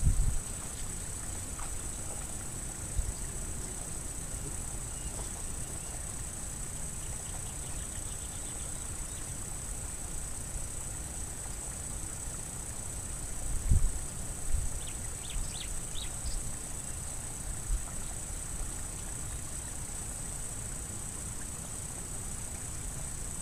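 Rural outdoor ambience: a steady high-pitched insect drone over a low rumble. A few low thumps fall around the middle, and a short cluster of high chirps follows soon after.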